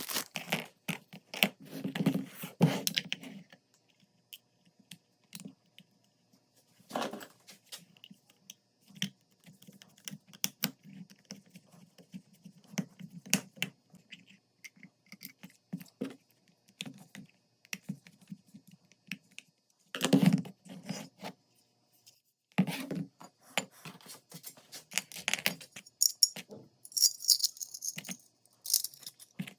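Small metal pistol parts clicking, tapping and rattling as they are handled, in irregular bursts with a louder clatter about twenty seconds in.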